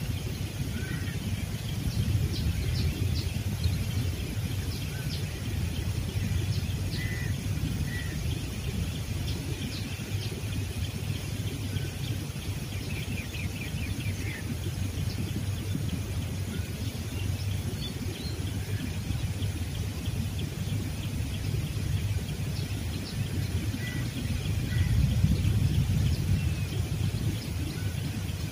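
Outdoor ambience: small birds chirping with scattered short calls and a quick trill about halfway through, over a steady low rumble.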